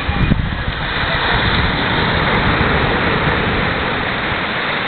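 Ocean surf washing onto a rocky shore: a steady rushing hiss with a low rumble underneath.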